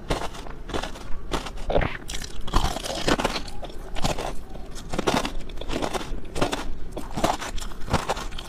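Close-miked crunching bites and chewing of a crystallized ice jelly cube, its crisp sugar crust cracking in repeated short crunches.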